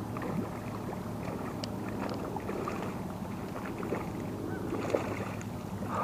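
A hooked walleye being reeled in on a spinning rod: steady water and reel noise with a few light splashes as the fish thrashes at the surface.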